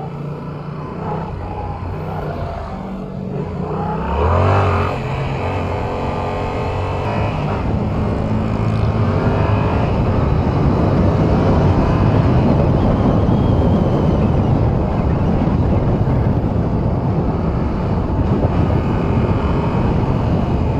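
Yamaha R7's 689 cc crossplane parallel-twin engine under way, heard from on the bike: its pitch rises as it accelerates about four seconds in, then a rush of wind and road noise builds up and holds as speed climbs.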